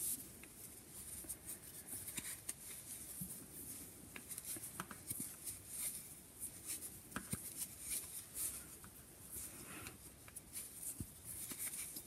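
Faint handling sounds of knitting: 10 mm wooden needles clicking lightly against each other as stitches are worked, with soft rustling of chunky wool yarn between scattered clicks.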